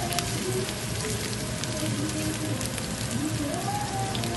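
Diced red onion sizzling and crackling in hot oil in a wok: a steady hiss dotted with small pops. Background music plays over it.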